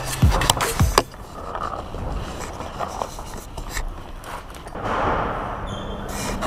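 Quick footsteps and scuffs on stone stairs for about the first second, then a steady rushing hiss that swells about five seconds in.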